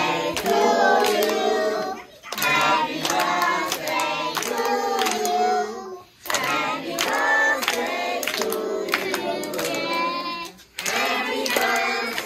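Children's voices singing a song in phrases of about four seconds with short breaks between them, over frequent sharp clicks.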